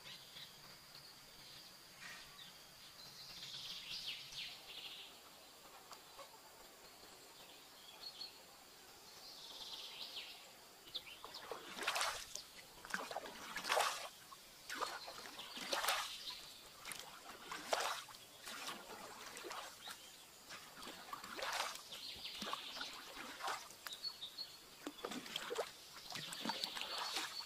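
Birds calling in the forest, then from about halfway through a bamboo pole dipping into lake water to push a raft, with splashes and drips about once a second while the birds go on calling.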